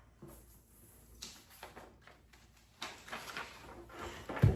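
Faint rustling and soft indistinct noises, then one short, deep thump near the end.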